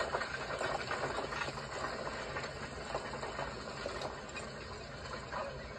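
Quiet, steady background noise with a faint hum and a few soft scattered clicks: a film's soundtrack between lines of dialogue, played through a computer screen's speakers and recorded again.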